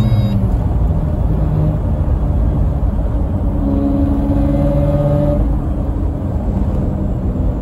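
Mazda 12A rotary engine pulling a car along the road, heard from inside the cabin. Its note drops about half a second in, then rises slowly a few seconds later as the car gathers speed.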